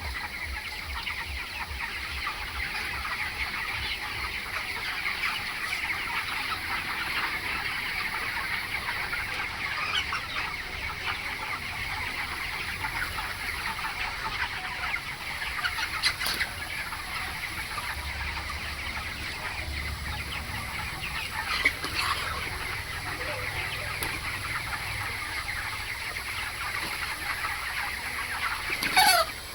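A large flock of chickens in a poultry house clucking and chattering continuously, many birds at once. Near the end one bird gives a louder call that falls in pitch.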